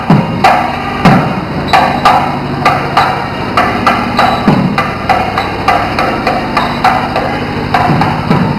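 Temple procession drumming: sharp, regular drum strokes about three a second, with a few deep strokes that drop in pitch, over a steady low hum.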